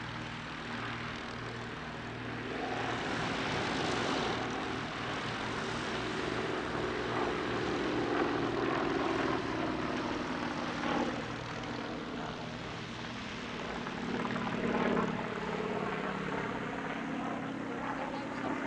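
Nanchang CJ-6's radial engine and propeller as the aircraft flies its display, the engine note swelling and sliding down in pitch as it passes, loudest about four seconds in and again about fifteen seconds in.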